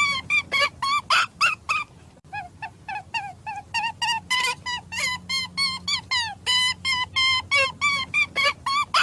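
Rapid run of short, pitched bird calls, several a second, with a brief pause about two seconds in.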